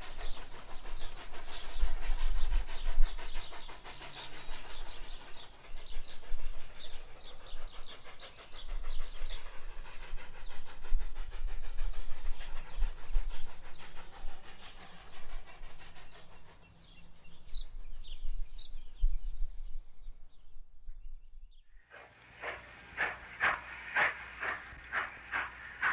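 Narrow-gauge Rio Grande 2-8-2 Mikado steam locomotives working: a locomotive hauling a freight train chuffs under a low rumble. About 22 seconds in, the sound cuts to a second locomotive whose exhaust chuffs in sharp, evenly spaced beats, about two a second.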